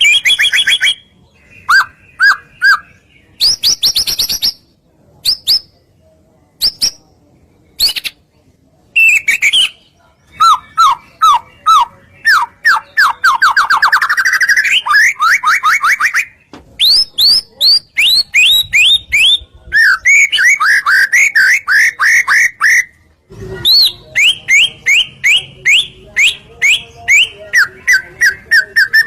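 Songbird song played as a lure recording to set other birds singing: rapid runs of repeated, loud whistled notes that sweep in pitch, and fast trills, broken by several short pauses.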